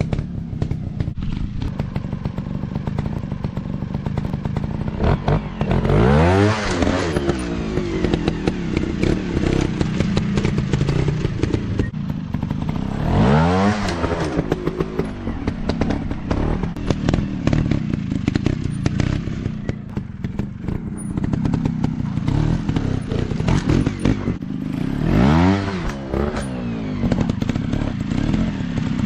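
Dirt bike engines running steadily, with clattering and knocking over the top; three times a bike passes close, its engine note rising and then falling.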